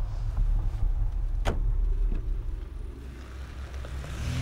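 A car engine idling with a steady low hum, and a single sharp click about a second and a half in. Near the end the engine note rises as the car pulls away.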